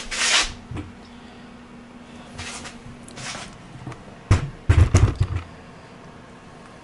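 Hands handling bike assembly parts: a brief rustle, a few light scrapes, then a cluster of sharp knocks and clunks about four to five seconds in as parts are set into place.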